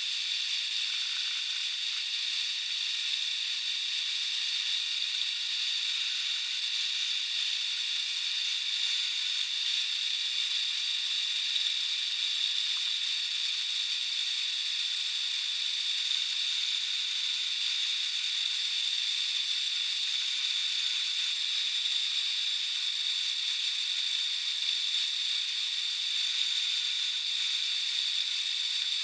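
Sandpaper held against a workpiece spinning in a metal lathe: a steady, even hiss that does not change.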